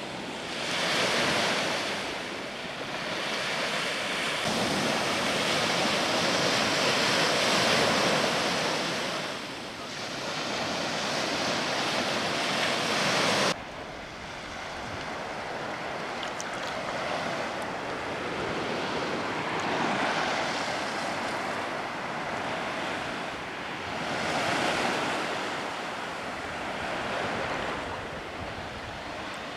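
Calm sea water lapping and washing around a camera held at water level, with wind on the microphone. The wash swells and eases, and it drops abruptly to a lower level about halfway through.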